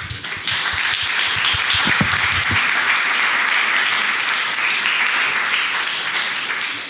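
Audience applauding, many hands clapping together. It builds within the first half-second, holds steady, and begins to fade near the end.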